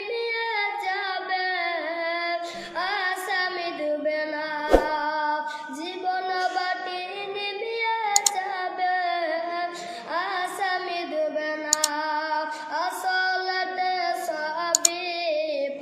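A high solo voice singing a slow Bengali Islamic devotional song in long, drawn-out ornamented lines, with a sharp click about five seconds in.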